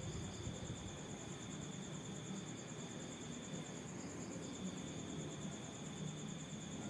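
Insects trilling steadily in two high, continuous tones; the lower one pauses briefly about four seconds in, then resumes.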